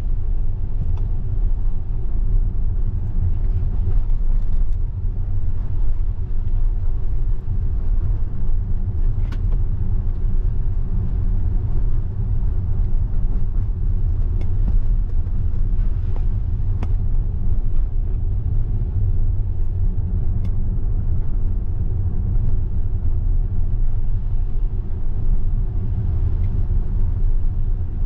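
Steady low road and tyre rumble inside the cabin of a Tesla electric car driving on wet pavement, with no engine note.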